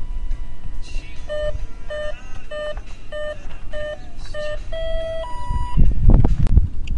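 Electronic beeps from the Sundowner RC airplane's onboard electronics as they are powered up: six short beeps at one pitch, evenly spaced, then a longer beep that steps up to a higher note. Low knocks and rumble near the end.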